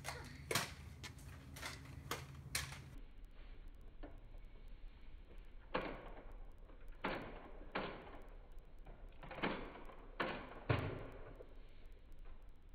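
Nerf dart blasters being fired and foam darts striking: a string of sharp, single knocks spaced irregularly, about nine in all.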